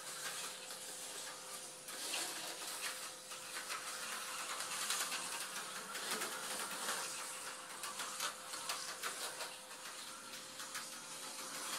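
HO-scale Tyco slot car on a 440x2 chassis running on plastic track: a steady high hiss from its small motor and pickup shoes, with rapid clicking over the track joints. The sound grows louder and fainter as the car comes near and goes away around the layout.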